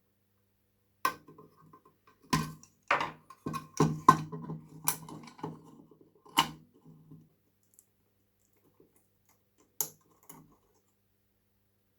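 Clicks and light knocks of the small crimped sheet-metal parts of an old kerosene storm lantern being handled, with a faint metallic ring. They come in a dense run from about one to six and a half seconds in, then two more knocks near the end.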